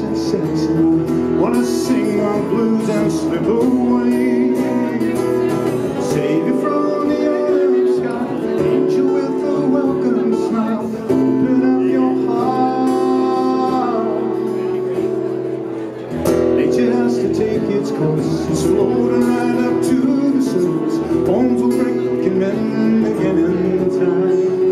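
A man singing live to his own strummed acoustic guitar, holding one long note about halfway through.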